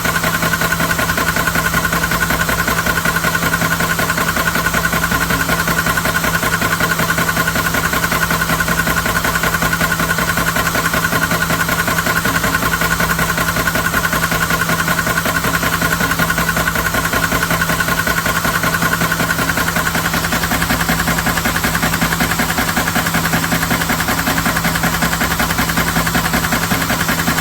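Greteefor CS6-Plus PCP high-pressure air compressor running steadily, its 350 W motor driving the pump with an even, unchanging hum.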